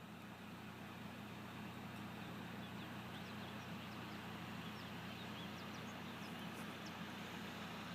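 A steady low mechanical hum over a constant hiss, with a few faint, short high chirps scattered through it.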